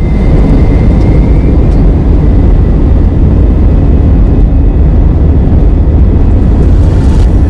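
Airbus A320 jet engines and airframe heard from inside the cabin at the window during the takeoff run: a loud, steady low rumble, with a faint whine rising slightly in the first couple of seconds.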